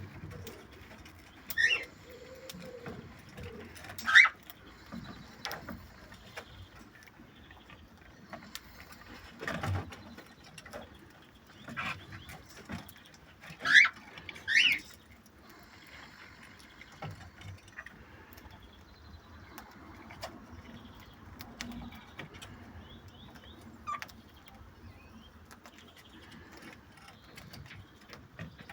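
Cockatiels giving a few short, sharp, upward-sliding chirps, the loudest about four seconds in and twice close together about fourteen seconds in. Soft clicks come in between.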